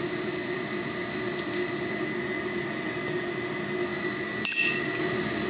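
A single sharp metallic clink with a brief high ring about four and a half seconds in, a steel tool knocking against metal. Under it is the steady hum of the lit forge.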